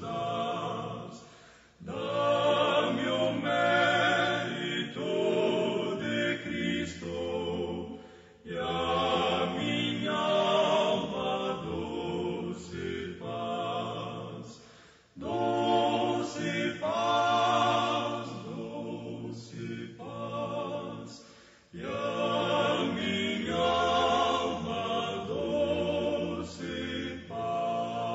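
A choir singing a hymn in long phrases of about six or seven seconds, each followed by a short breath pause.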